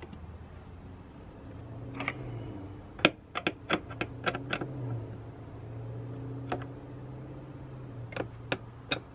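Sharp clicks and taps of a screwdriver and plastic door trim being worked back onto a Toyota RAV4 Prime's door panel. There is a quick run of about six clicks around the middle and a few more near the end, over a low steady hum.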